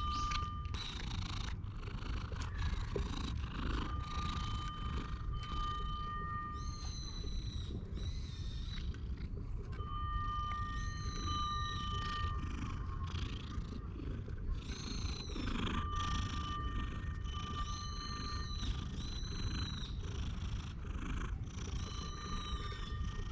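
Tabby cat purring with a steady low rumble right at the microphone while being stroked. About six short, high, arching calls sound every few seconds over it, and a thin steady high tone comes and goes.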